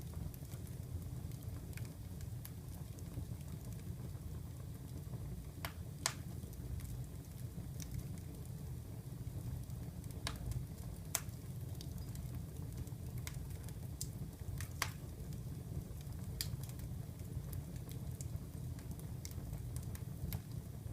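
Wood fire in a fireplace crackling: a steady low rumble of burning with irregular sharp pops and snaps, a few louder ones scattered through.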